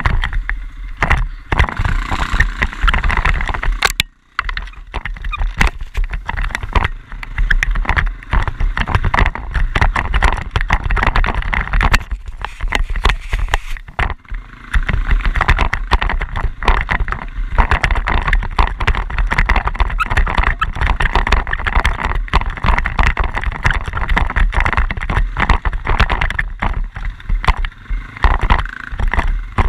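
Quad bike (ATV) being ridden: engine noise mixed with heavy rumble on the microphone and frequent knocks and rattles, dropping away briefly about four seconds in.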